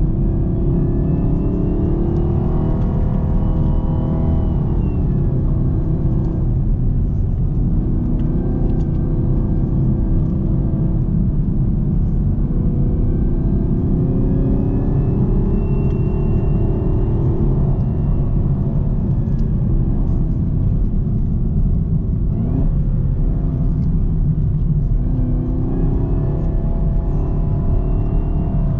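2018 Camaro ZL1's supercharged 6.2-litre V8 running under load, with a heavy exhaust rumble and a high supercharger whine. Both slowly rise and fall in pitch several times as the revs climb and drop.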